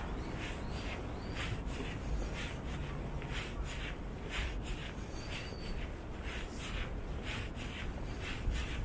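Footsteps on stone paving at a steady walking pace, about two steps a second, over a steady low rumble of street background noise.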